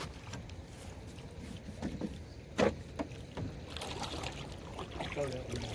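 Knocks and faint water trickle of handling in an aluminum-free canoe: a few soft taps against the hull, one louder about two and a half seconds in.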